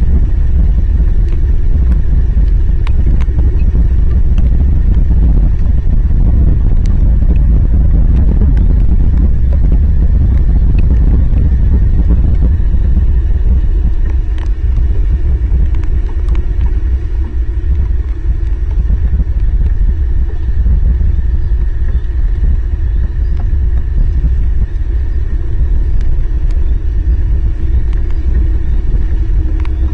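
Heavy rain on an outdoor camera's microphone: a loud, steady low rumble with scattered sharp ticks, easing slightly about halfway through.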